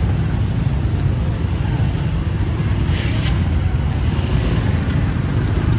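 Busy street-market ambience: a steady low rumble of passing traffic with indistinct voices, and a brief hiss about three seconds in.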